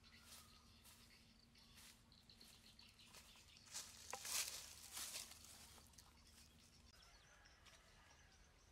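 Footsteps rustling and crunching through dry leaves and brush, loudest for about a second and a half midway as the walker passes close. Faint high chirping runs underneath throughout.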